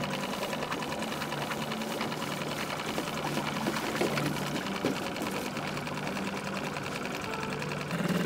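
Small outboard motor idling in neutral, a fast, even mechanical chatter that grows a little louder near the end.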